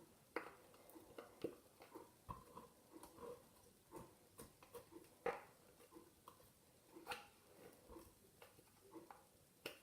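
Faint, scattered sticky squelches and small clicks of glittery slime being squeezed and stretched by hand, with a few slightly louder pops among them.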